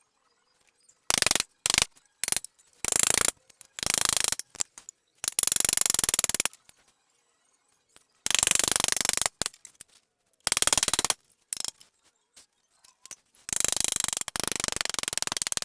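Pneumatic impact wrench hammering in a series of short bursts, the longest about two seconds, working on the seized front pulley and harmonic balancer of a Ford Boss V8.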